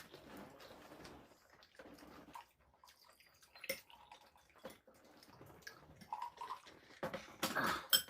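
Table eating sounds: a spoon clicking against a bowl and soup sloshing, with a louder splash of liquid near the end.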